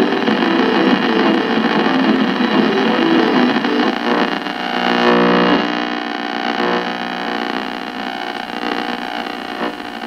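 Static and hiss from a Zenith 4-T-26 tube radio's speaker as its dial is turned across the AM band between stations, over a steady hum. A weak station briefly comes through the noise around five seconds in.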